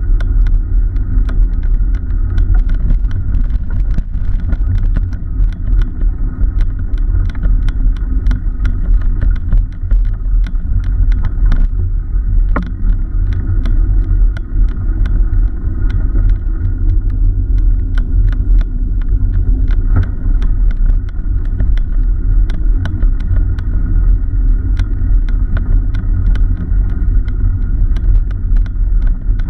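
Ride noise on a camera mounted on a moving cargo bike: heavy low wind and road rumble, with frequent small clicks and rattles.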